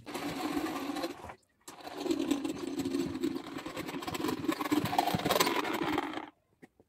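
A rapid, steady mechanical clatter. It breaks off briefly about a second in, resumes, and stops abruptly near the end.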